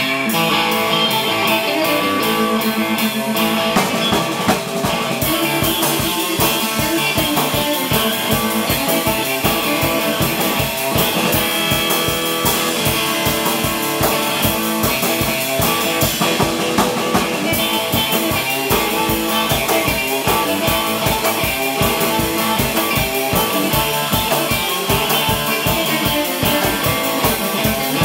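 Surf-style electric guitar riff repeating from a looper pedal, with a drum kit coming in a few seconds in and keeping a steady beat.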